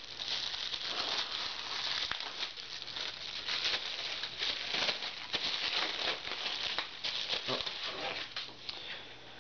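Thin clear plastic bag crinkling and rustling in the hands as it is opened and the paper manuals inside are pulled out, a steady crackle of small crinkles.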